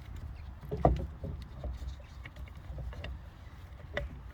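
Rowing machine being worked after its tangled pull cord has been re-threaded: a steady low whir from the flywheel mechanism with a few light knocks and clicks.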